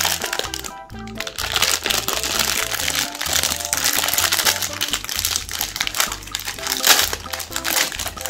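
Plastic wrapper of a Magnum Double ice cream bar crinkling and crackling as it is torn open and peeled back, starting about a second in, over background music with a steady bass line.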